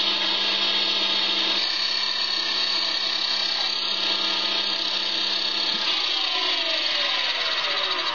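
Thin abrasive friction disc spun on a lathe at about 1900 RPM, grinding a slot through hard steel plate: a loud, steady grinding hiss with a high whine. A tone slides down in pitch over the last couple of seconds.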